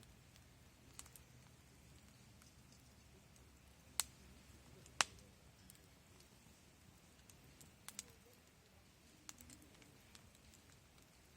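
Wood fire crackling with scattered small ticks and two sharp pops about a second apart near the middle, then a quick double pop.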